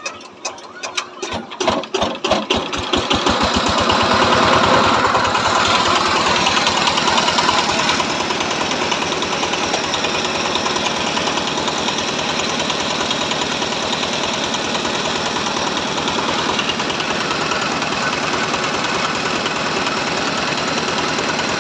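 Small single-cylinder diesel engine starting: separate firing beats about a second in that speed up and merge over the next two seconds. It then runs steadily at working speed with a hard knock.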